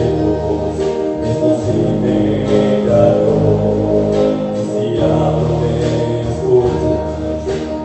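Live worship band playing a song on electric guitars, bass and drums, with the chord changing about two seconds and five seconds in.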